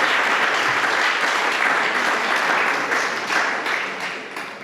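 Spectator applause in a shooting hall, dense at first, then thinning into scattered claps and fading away.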